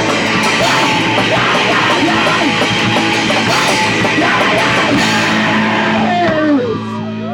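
Live punk rock band playing loud distorted electric guitar and drums; near the end the playing drops off and a sustained chord is left ringing.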